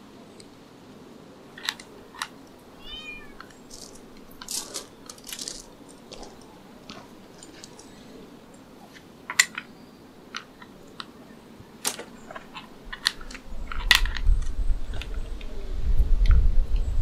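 Scattered sharp clinks and taps of tea glasses and crockery at the outdoor tables, with a short run of quick high chirps about three seconds in. A low rumble rises over the last few seconds.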